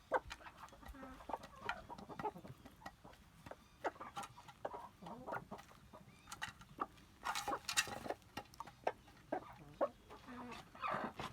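Chickens clucking, with many short clicks and taps, busiest about seven to eight seconds in.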